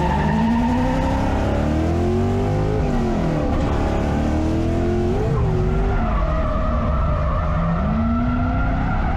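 Lexus SC400 drift car's engine revving up and down through a drift, with tyres skidding. The engine pitch climbs for the first couple of seconds, drops sharply about three to four seconds in, climbs again, dips about six seconds in, then climbs again near the end and holds.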